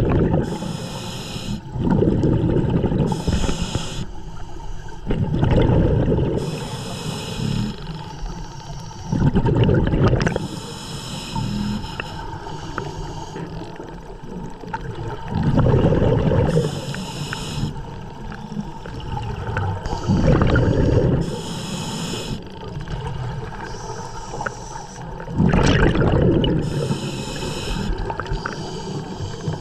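A scuba diver breathing through a regulator underwater: a hissing inhale through the regulator, then a low rumble of exhaled bubbles, repeating in a slow steady rhythm about every five seconds.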